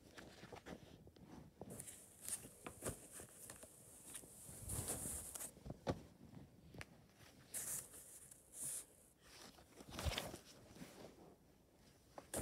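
Faint handling noise from glossy magazines being moved and touched: scattered rustles of paper and covers mixed with small taps and clicks.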